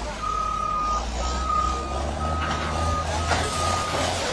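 Excavator's warning alarm beeping steadily, about one long beep a second, over the low rumble of its engine running, with a single knock a little after three seconds in.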